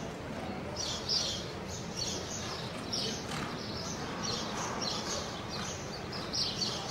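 Small birds chirping in short, irregular bursts over a steady background hiss.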